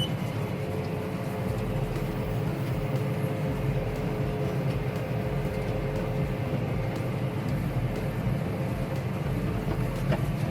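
An engine runs steadily with a low drone and a faint steady whine above it, unchanging throughout.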